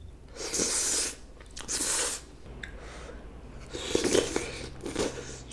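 A person eating noodle stew: a few short, noisy slurps and chewing of the noodles.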